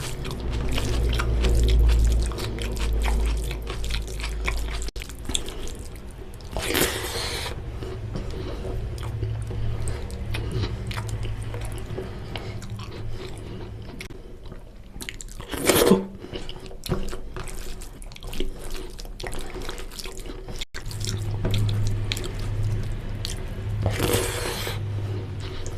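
Close-up eating sounds of oily mutton curry and rice: wet chewing, mouth clicks and squelching, with three short, louder wet slurps spread across, over a steady low hum.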